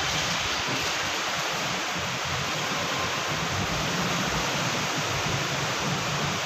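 Steady rushing and sloshing of floodwater as an ambulance van drives through a flooded underpass, pushing a wake.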